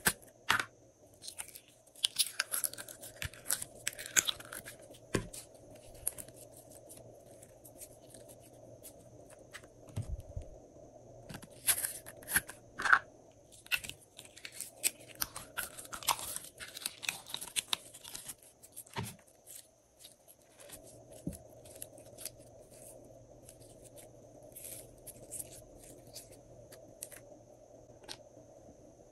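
Slime being squeezed and mixed in plastic piping bags: irregular sticky clicks, pops and crunchy crackling in bursts, with quieter stretches between.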